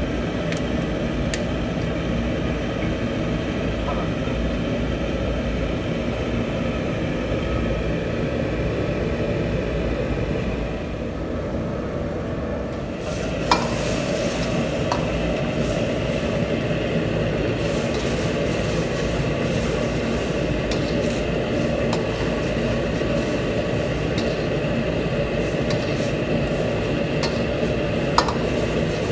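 Cut tomatoes sizzling and simmering in a steel wok while a metal ladle stirs them, over a steady rushing background noise. The ladle clinks sharply against the wok about halfway through and again near the end.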